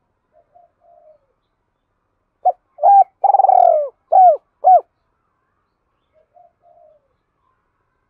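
Spotted dove cooing close to the microphone: one loud phrase of five notes starting about two and a half seconds in, a long drawn middle note among shorter ones. Fainter short coos come near the start and near the end. This is the calling song of a decoy dove, used to rouse wild doves.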